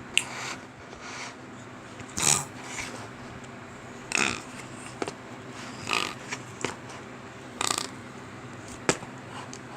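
Slime being squeezed and worked by hand, giving short, irregular squelches and sharp little pops about a dozen times, loudest about two and four seconds in. A faint steady hum lies underneath.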